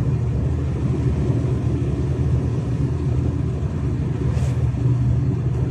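DAF truck's diesel engine pulling steadily under load on an uphill climb in sixth low gear, a continuous low drone heard from inside the cab; it is running evenly and pulling well.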